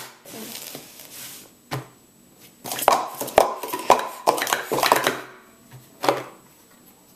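Plastic sport-stacking cups (Speed Stacks Pro Series) rattle and clack as they are stacked up into pyramids and down again in a fast timed run, a dense clatter for about two and a half seconds. One more sharp slap comes near the end as the hands come down on the timer pads.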